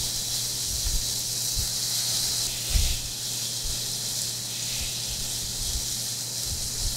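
Pork belly and kimchi sizzling on a hot grill plate: a steady hiss, with a soft knock a little under three seconds in.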